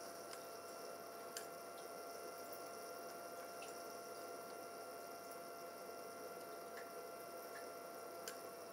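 Faint clicks of small push buttons being pressed on a homemade aquarium controller, a handful spaced a second or more apart, over a steady background hiss with a faint steady tone.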